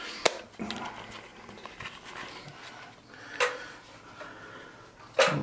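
Footsteps and small knocks on a tiled floor: a sharp click near the start, then two louder knocks about three and a half and five seconds in.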